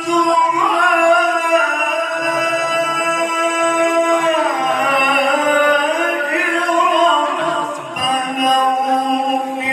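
A male qari reciting the Quran in melodic tilawah style into a handheld microphone. He holds long notes that glide up and down in ornamented runs, and the voice carries on without a break.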